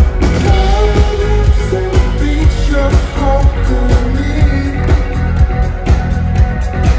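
Live alternative dance rock band playing: a steady, bass-heavy drum beat about two hits a second, with electric guitar and a wavering sung melody over it.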